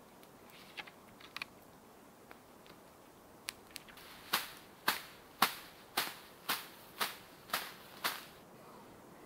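A few light clicks, then about four seconds in a run of eight sharp, evenly spaced strikes about half a second apart, each with a short ring-out.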